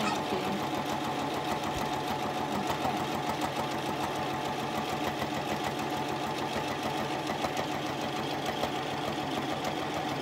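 Toyota electric sewing machine running at a steady speed, its needle stitching rapidly and evenly down a long straight seam.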